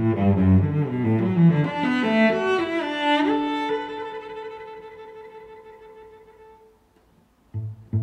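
Background instrumental music: a melody of stepping notes with a quick upward run, settling on a held chord that fades out about seven seconds in. A new phrase begins just before the end.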